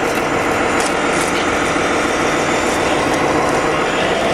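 Radio-controlled 6x6 model tractor unit driving over dirt, its motor and drivetrain making a steady running sound.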